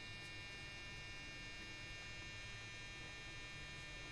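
Steady electrical hum with a faint buzz, unchanging throughout.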